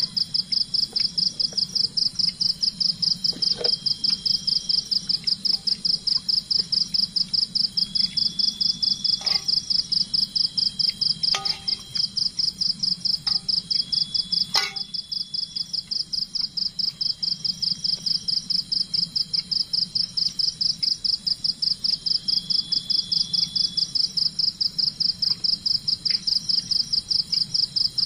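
Forest insects calling loudly: a high, shrill call pulsing rapidly and evenly, with a second insect's thinner tone coming and going. A few sharp knocks sound now and then.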